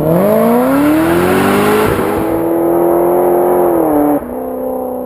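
Engine sound effect on a logo end card: it revs up sharply and holds at high revs, then drops suddenly to a lower steady note about four seconds in.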